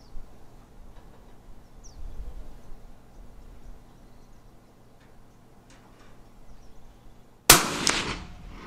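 A single suppressed rifle shot from a Springfield Waypoint in 6mm Creedmoor, fired about seven and a half seconds in: a sharp report followed by an echo that dies away over about a second.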